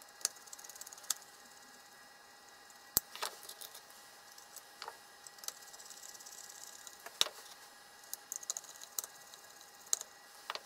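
Screwdriver turning the small corner screws on the metal cover of an instrument's pressure housing: scattered sharp metal clicks, four of them louder than the rest, and brief light rattles of the blade on the screw heads. A faint steady hum runs underneath.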